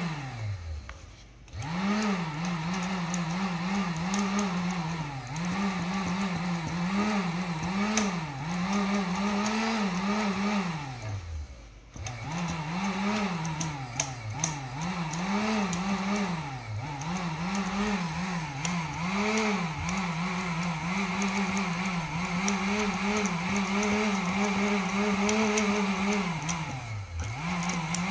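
A 1500-watt heat gun's fan motor runs on current fed through a deliberately arcing wire, with crackling clicks from the arc. Its hum keeps wavering and several times sags almost to a stop before speeding back up as the arc makes and breaks contact. The Siemens combination AFCI breaker upstream never trips on this series arc, which the owner takes for a faulty breaker.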